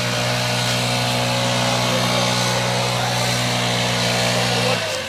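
A vehicle engine running steadily at an even pitch. It cuts off abruptly near the end.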